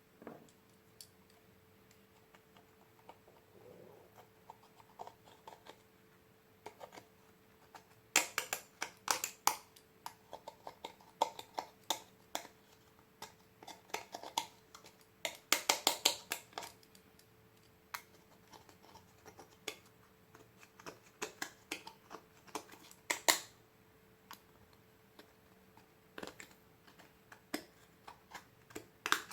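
Glitter slime being pressed and squished, making clusters of sharp, sticky clicks and pops with quieter stretches between them.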